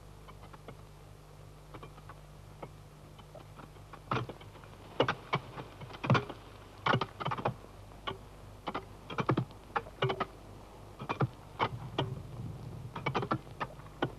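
Sledgehammers striking on railway track work: irregular sharp metallic blows from several workers hitting out of step, some with a brief ring. The blows start about four seconds in, over a faint steady hum of an old film soundtrack.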